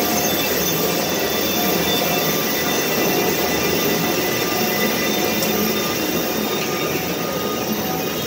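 Small amusement-ride train rolling along its track: a steady running noise of wheels and cars in motion.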